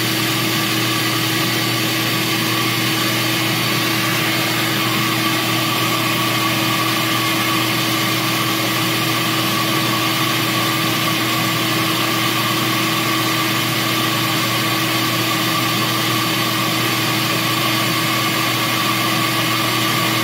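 Cylinder-head flow bench running steadily as it draws air through an intake port under test: a constant rush of air with a steady whine.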